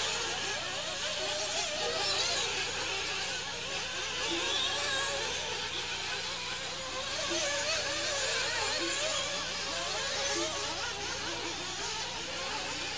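Several nitro RC buggy engines running at high revs, a high buzzing whose pitch keeps rising and falling as the cars accelerate and back off. A steady low hum runs underneath.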